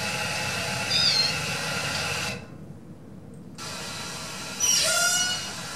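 Two recorded Bigg's killer whale pulsed calls of different call types, played one after the other over a lecture-hall loudspeaker, each over a steady background hiss. The first holds a short wavering tone; the second starts about three and a half seconds in and grows louder with a stack of bending tones.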